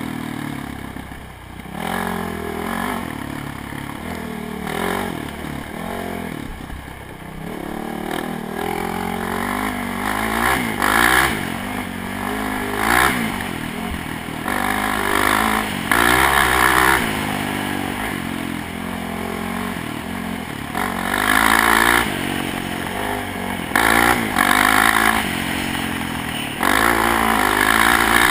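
Off-road ATV engine heard from onboard, its pitch rising and falling over and over as the throttle is opened and closed through the gears, with louder surges every second or two at full throttle.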